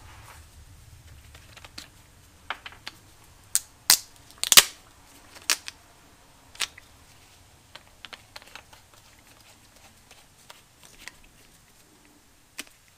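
Plastic bottle of tire sealant being handled and its cap worked open: a scatter of sharp clicks and plastic crackles, the loudest few about four seconds in.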